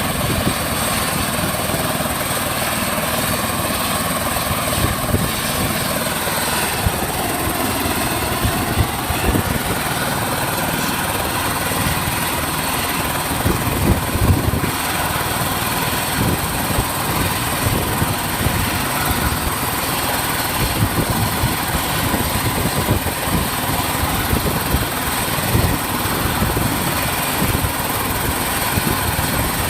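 Helicopter running at close range: steady rapid beating of the rotor blades over a continuous engine roar, with a thin steady high whine.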